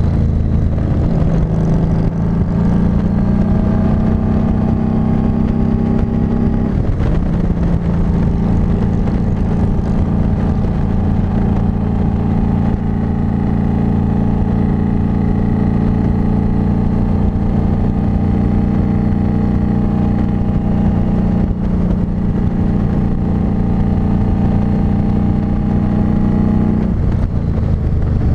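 Harley-Davidson Street 500's 494 cc V-twin under way at road speed, with wind rush over the microphone. The engine note climbs, drops sharply about seven seconds in as the bike shifts up, then climbs slowly again and drops once more near the end.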